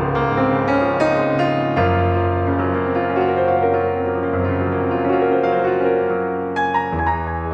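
Background piano music: a calm melody over sustained bass notes.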